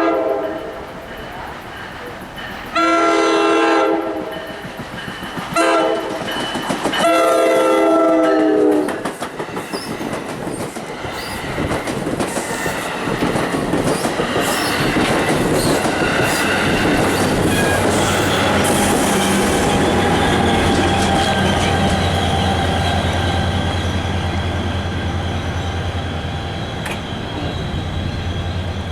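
Train horn sounding the grade-crossing signal, long, long, short, long, in the first nine seconds, followed by the train rolling past with wheels clattering over the rails and a steady low locomotive engine drone in the second half.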